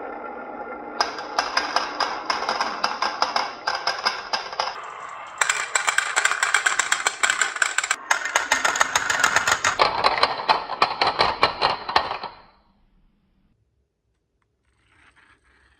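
Many glass marbles rolling and clattering down a marble run track, a dense stream of rapid clicks and clinks with a high ringing. It gets louder about five seconds in and stops about twelve seconds in.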